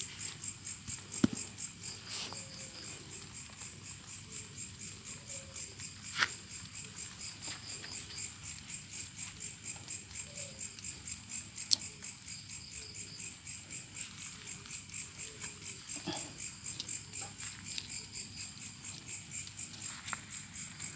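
Crickets chirping in a steady, pulsing night chorus, with a few sharp clicks or knocks standing out above it, the loudest about a second in and near the middle.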